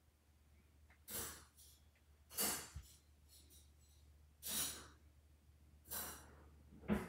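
A person breathing close to the microphone: five short breaths, about one every second and a half, over a faint steady low hum.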